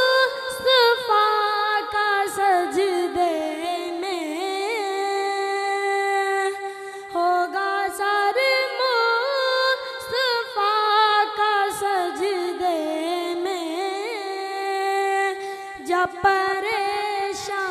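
A boy singing an Urdu naat unaccompanied into a microphone, drawing out long held notes with a wavering, ornamented pitch.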